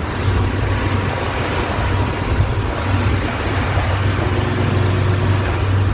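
A boat's engine running steadily under a loud rush of wind and splashing water as the boat rides through rough, choppy water.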